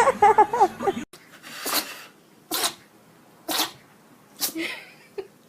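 A puppy sneezing four times in a row, short sharp sneezes about a second apart, with a faint one near the end.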